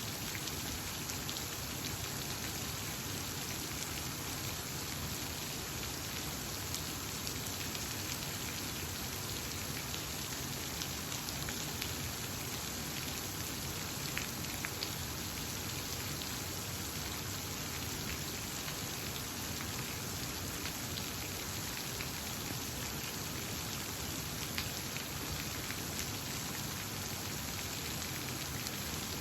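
Running water: a steady, even rush of water with no breaks, with a few faint brief ticks now and then.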